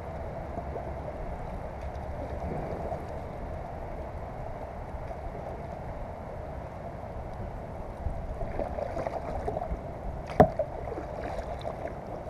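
Kayak paddle strokes splashing through weedy lake water over a steady low rumble, the splashes growing more distinct in the second half. A single sharp knock about ten seconds in is the loudest sound.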